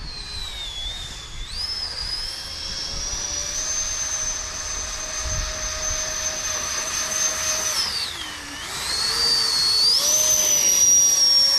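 Radio-controlled airboat's electric motor and air propeller whining at speed. The pitch holds high, dips briefly about eight seconds in, then climbs again and gets louder near the end.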